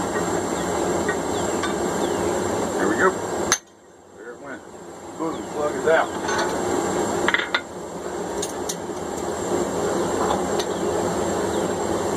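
Blacksmith's hammer striking a hot punch to drive the eye through a steel hammer head over the anvil's hardy hole, pushing out the plug. A few separate sharp strikes sound over a steady rushing noise, which cuts out suddenly early on and builds back.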